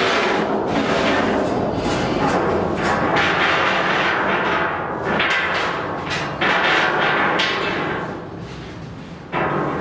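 A large steel plate being shifted across the steel frames of a boat's cargo hold, clanking and booming against the steel with repeated knocks. It eases off near the end, then gives a sharp clank.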